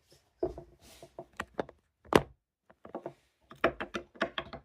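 Knocks and clicks from the built Lego Technic model being handled on a hard surface. There is one loud knock about two seconds in and a quick run of clicks near the end.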